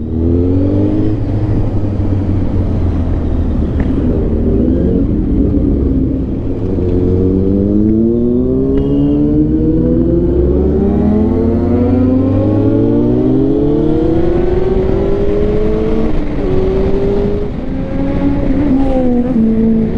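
Superbike engine under hard acceleration, its pitch climbing in several long rising sweeps as it pulls up through the gears, then easing off near the end.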